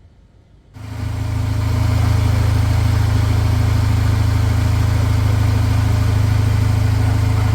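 Audi 2.0 TFSI turbocharged four-cylinder engine running steadily at an even speed after its timing-chain overhaul and new coil packs and spark plugs, coming in suddenly about a second in.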